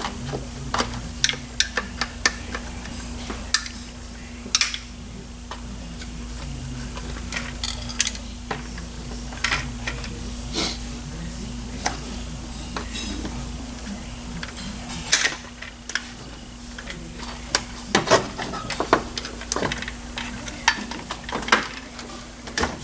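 Metal hand tools and engine parts clinking and tapping against each other, irregularly, with a steady low hum underneath.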